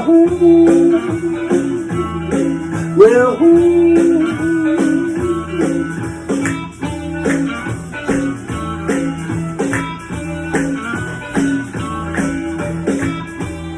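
Blues band playing an instrumental stretch: a repeating guitar riff over a steady beat, with a note that slides up and is held just after the start and again about three seconds in.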